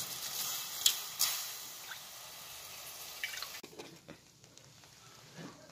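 Water in a cooking pot being splashed and dripping as a hand mixes basmati rice into it, with two sharp clicks about a second in. The sound drops away to a faint level after about three and a half seconds.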